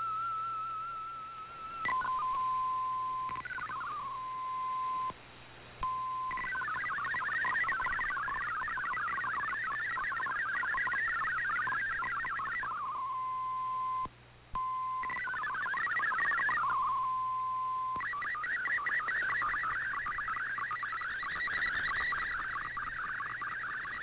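MFSK64 digital-mode data signal from a shortwave receiver's speaker. A wavering single tone ends the previous image transmission. A steady single tone follows, broken by two stretches of fast-hopping warbling tones carrying text and by two brief dropouts. About 18 s in it turns into a continuous band of shifting tones as the next picture begins to send.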